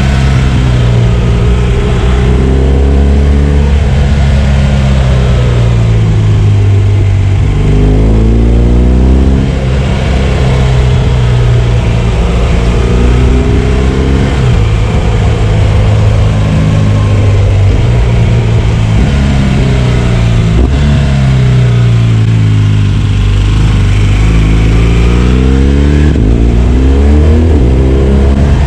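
BMW R1200 GS boxer-twin motorcycle engine under way, its note repeatedly rising as the rider accelerates and falling back as the throttle closes or a gear changes.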